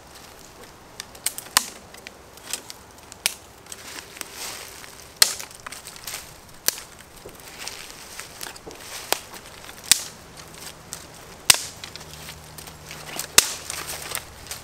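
Small dry twigs snapped off a tree by hand: a dozen or so sharp cracks at irregular intervals, with rustling of the twigs between them.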